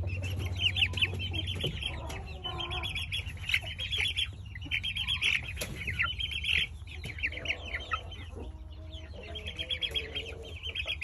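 Young chickens peeping continuously in quick, high chirps, with some lower trilling clucks mixed in.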